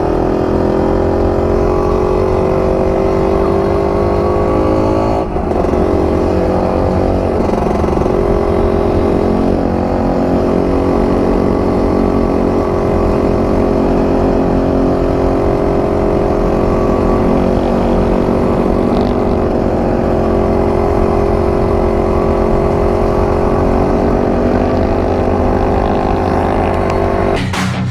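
125 cc two-stroke dirt bike engine running at fairly steady revs, its pitch rising a little over the first few seconds, with a brief dip about five seconds in.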